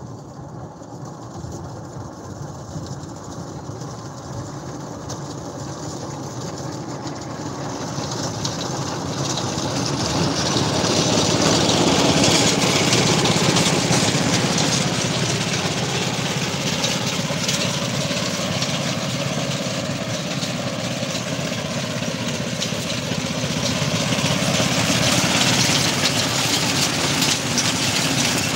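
Small engine of a walk-behind crop-cutting machine running under load as it cuts fenugreek, with a steady hiss from the cutting. It grows louder as the machine comes closer and is loudest about halfway through.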